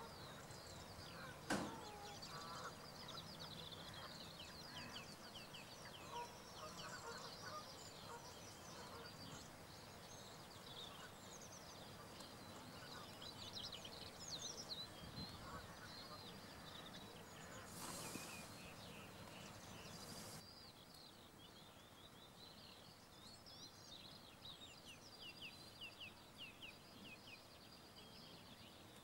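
Faint, busy chatter of distant wild birds calling, many quick high chirps overlapping throughout. A single sharp click comes near the start, and a short rush of noise, like wind on the microphone, about two-thirds of the way through.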